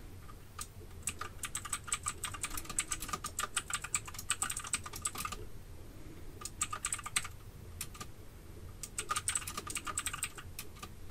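Typing on a computer keyboard: rapid key clicks in three bursts, the first and longest lasting about four seconds, then two shorter runs after brief pauses.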